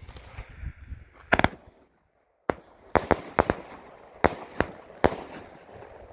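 Powerhouse Fireworks 'Trouble Maker' 9-shot firework cake firing, a rapid series of sharp bangs as its shells launch and burst: a double report about a second in, then a quick run of about seven more after a short break.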